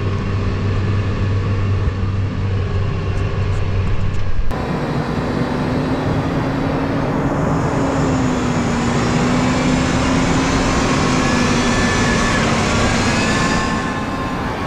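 Case IH 400 tracked tractor ploughing. For the first four and a half seconds its engine is a steady low drone heard from inside the cab. Then it is heard from outside, working under load with a wavering engine tone over a broad rushing noise.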